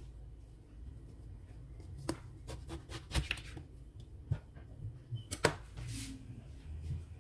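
Kitchen knife cutting an eggplant on a bamboo cutting board: several sharp knocks of the blade and handling against the board, the loudest about five and a half seconds in.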